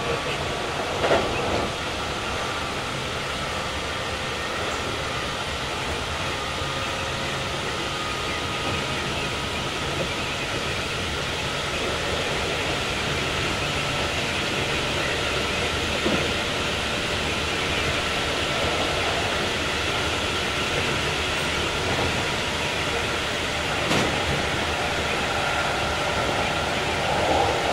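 Keikyu 2100 series electric train running at speed, heard from inside the car. It gives a steady rumble of wheels on rail with a faint high whine from the Toyo IGBT-inverter drive, and a few short sharp clicks.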